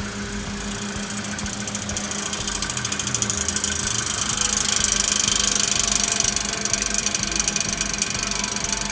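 Rapid, steady mechanical clicking from a car's rusted running gear over a low steady hum, growing louder toward the middle. This is the abnormal clicking noise that the mechanic puts down to rust spreading through the suspension parts.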